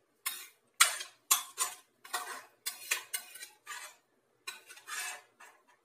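A cooking utensil scraping and knocking against a steel pot and a plate as stir-fried vegetables are scooped out. About a dozen short scrapes and clatters come in quick, uneven succession, the loudest about a second in.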